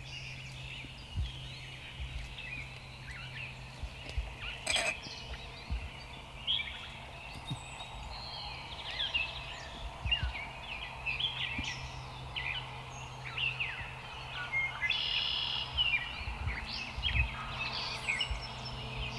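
Songbirds chirping and singing, with a wild turkey gobbler gobbling in the distance. A steady low hum sits underneath, and a single sharp click comes about four and a half seconds in.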